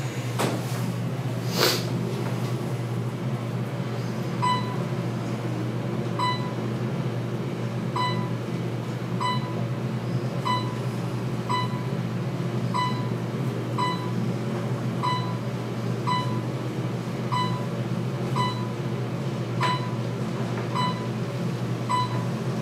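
Otis traction elevator car in motion: a steady low ride hum. A few clicks come in the first two seconds, then from about four seconds in a short electronic beep sounds about once a second, one for each floor the car passes. The first few beeps are spaced wider and then come closer together as the car speeds up.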